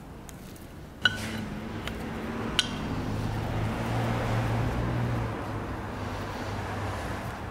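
Metal oil pump parts clinking as oiled billet gears are handled and set into a Ford Barra oil pump housing: a sharp ringing clink about a second in and another about a second and a half later, over a low steady hum.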